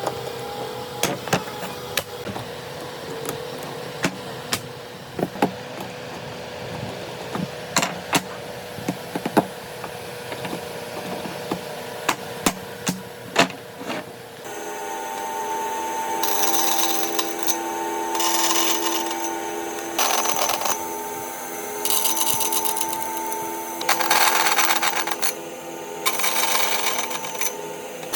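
Workshop tool sounds on wood. For the first half, irregular sharp knocks of hand-tool work over a steady hum. About halfway through, a small power tool starts running steadily, with repeated bursts of hiss about a second long as it cuts into the wood.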